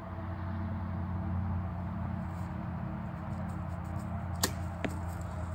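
A compound bow shot about four and a half seconds in: a sharp snap as the string is released, then a fainter knock from the arrow landing downrange a fraction of a second later. A steady low hum runs underneath.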